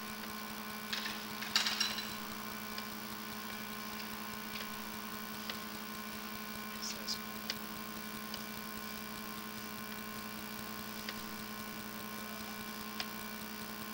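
Steady electrical hum from a sewer inspection camera rig while its push cable is fed up the drain line, with scattered light clicks and ticks, a few close together about a second or two in.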